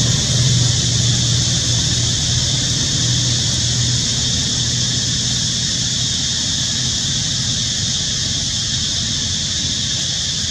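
A low, steady engine-like hum that fades after about six seconds, over a constant high-pitched hiss.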